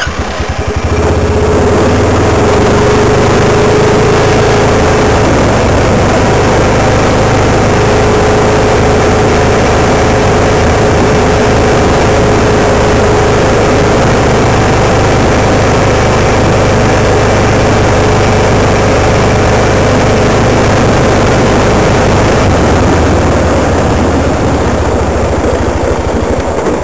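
A vehicle engine running steadily while driving, with loud road noise and a steady hum over it.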